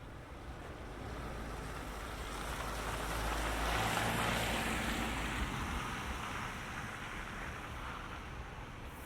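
A vehicle passing by: its tyre and engine noise swells to a peak about four seconds in, then fades away.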